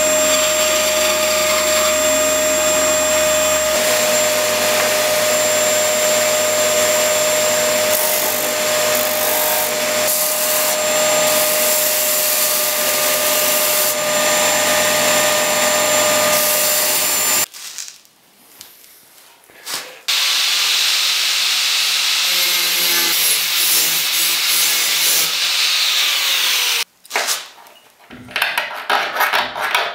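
Bandsaw cutting a block of wood, then a belt sander running as a piece is pressed onto the belt. Both are loud and steady, and the noise drops away twice. Near the end there are short, irregular scraping sounds from hand-tool work.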